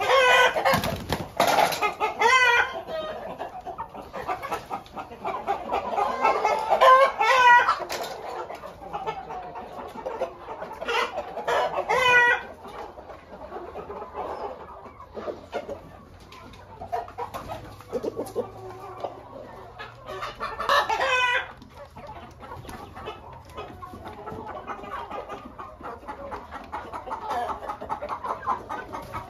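A flock of chickens clucking steadily, with loud drawn-out rooster calls, likely crows, breaking through about four times.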